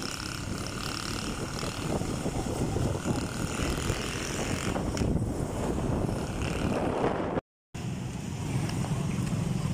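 Motorcycle engine running on the move, with road noise and wind on the microphone. The sound cuts out completely for a moment about seven and a half seconds in.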